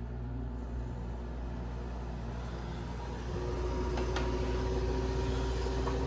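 GE through-the-wall air conditioner starting up and running with a steady low hum. About three seconds in a second steady tone joins and the sound grows a little louder, with a single click about a second later.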